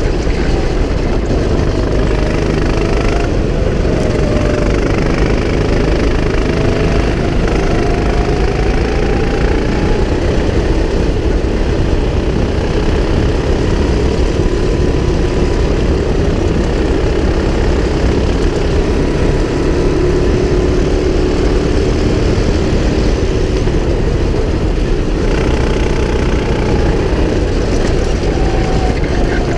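Go-kart engine running at speed, heard onboard, its pitch rising and falling as the kart brakes and accelerates through corners and straights, over a dense, steady rush of noise.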